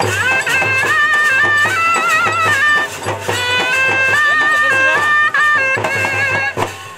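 Traditional folk band music: a reed wind instrument plays an ornamented melody of long held notes over regular drum beats.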